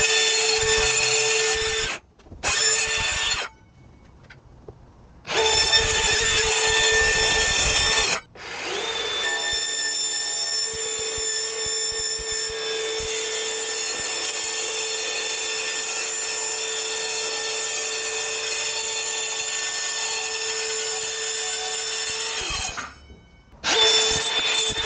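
Compact cordless circular saw cutting thin plywood sheet, its motor whining with a steady tone. It makes several short runs, then one long steady cut of about fourteen seconds that stops near the end, and starts again just before the end.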